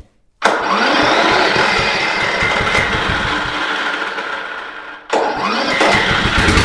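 A DR push mower's small gas engine, fed starting fluid through a freshly fitted spark plug after a fouled one, catches about half a second in and runs. It cuts out for a moment about five seconds in and picks up again.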